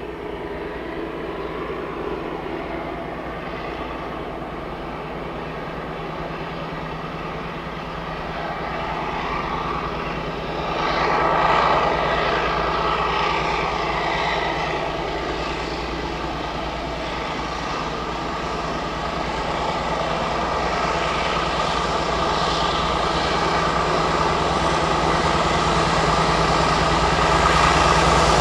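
Diesel locomotive engine running steadily, growing louder toward the end as it approaches.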